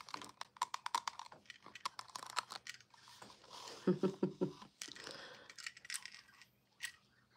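Handling of a paper bracelet sizer with a gold bangle on it, a rustling, crinkling sound broken by many small clicks and taps. There is a brief hum of voice about four seconds in.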